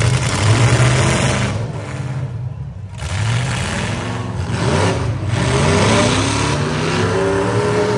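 Demolition derby trucks' engines revving hard and easing off, the pitch climbing and dropping again and again, with several engines overlapping.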